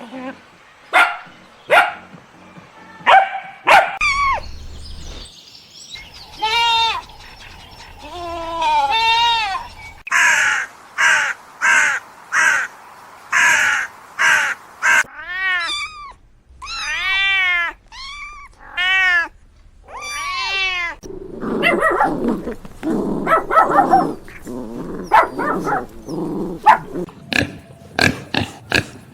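A series of different animal calls, one kind after another: short sharp calls, then wavering pitched calls, a run of rapid harsh calls, arching pitched calls, and low rough grunting near the end.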